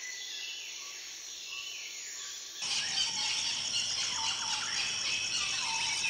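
Tropical forest ambience of insects buzzing and birds calling. About two and a half seconds in it cuts abruptly to a louder, busier chorus of many chirping, trilling birds over a pulsing insect buzz.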